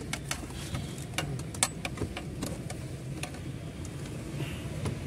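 A screwdriver working out the screws at the side of a car's dashboard console frame: a run of irregular sharp clicks and ticks of the metal tool against the screws and the plastic trim.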